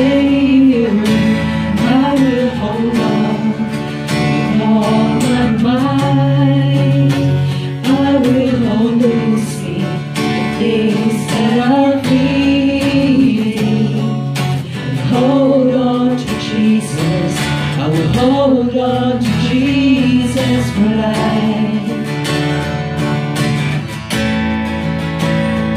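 A worship song: a melody sung over strummed acoustic guitar, without a break.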